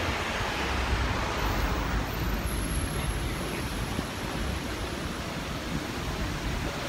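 Steady street traffic noise, with wind rumbling on the microphone.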